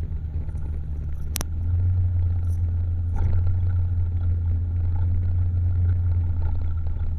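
Steady low rumble of a Honda Vario 150 scooter on the move, its engine mixed with wind on the microphone, with one sharp click about a second and a half in.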